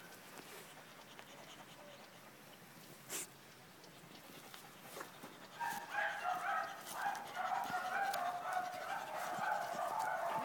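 Dogs barking rapidly and repeatedly, starting a little past halfway and keeping on. Before that only faint outdoor background with a brief knock.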